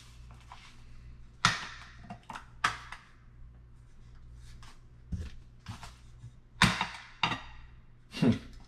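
Cookware pots and their detachable handle knocking and clicking as they are handled: about six separate sharp hits, the loudest about one and a half, two and a half and six and a half seconds in.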